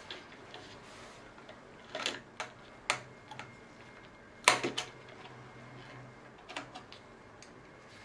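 Sharp clicks and taps of small parts being handled as a OneUp dropper-post remote lever is fitted on a mountain-bike handlebar, its cable and housing fed in and a hex key put to it. There are about half a dozen scattered clicks, the loudest a quick cluster about halfway through.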